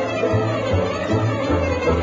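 Dramatic orchestral background music, with strings over a low, pulsing bass line.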